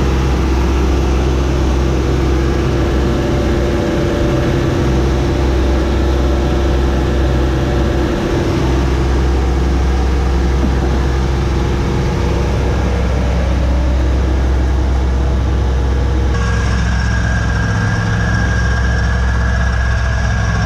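Camper drivetrain running steadily in gear, its driveshaft and right rear hub turning fast with the brake rotor spinning free of its wheel, making a continuous hum. From about two-thirds of the way in, a steady high whine stands out near the right rear hub: the noise the owner suspects comes from the wheel bearing, or possibly the brakes.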